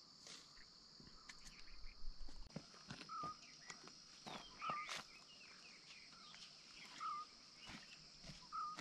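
Faint outdoor ambience: a bird gives a short call over and over, about every one and a half seconds, with a few other chirps, over a steady high insect drone. Scattered light clicks run through it.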